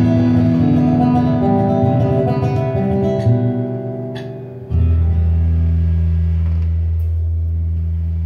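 Informal guitar jam: several guitar notes ringing together and changing, then about halfway through a strong low final note starts suddenly and rings on, slowly fading.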